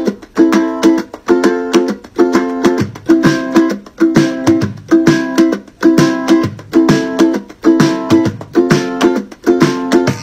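Background music: strummed ukulele chords in a steady, even rhythm.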